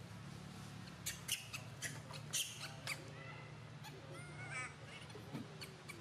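Long-tailed macaques: a run of sharp clicks and rustles in the first half, then a short warbling call about four and a half seconds in, over a steady low hum.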